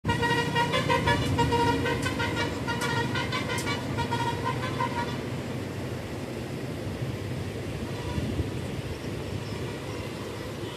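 A vehicle horn sounding in a quick run of short, pulsing blasts for about the first five seconds, over the steady low rumble of the train running across the bridge.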